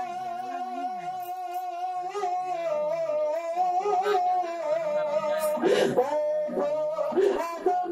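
A man singing a naat, drawing out long wavering notes that shift in pitch from step to step, then growing louder with sharper syllables in the second half.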